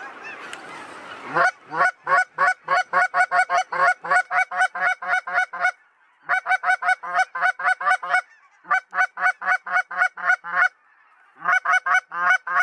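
Goose calls: after a second or so of hiss, high honking calls come quickly and evenly, about four or five a second, in runs broken by three short pauses.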